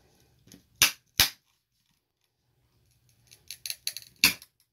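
Hard plastic Beckett grading case cracking as a flathead screwdriver pries into its edge: two sharp snaps about a second in, then a run of small crackles and one more loud snap near the end, the case splitting apart.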